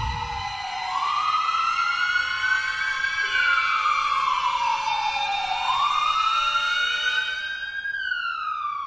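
Emergency vehicle siren wailing, its pitch sliding slowly up and down about every five seconds, growing fainter near the end.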